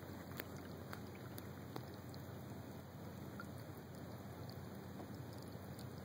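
Electric trolling motor pushing a kayak, a faint steady hum, with scattered soft ticks of water against the hull.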